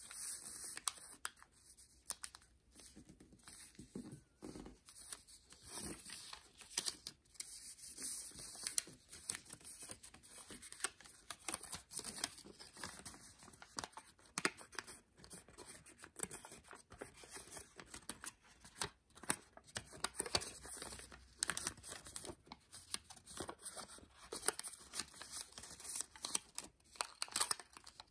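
Thin kami origami paper being handled, folded and creased by hand: irregular rustling and crinkling, with many short, sharp crackles as the folds are pressed.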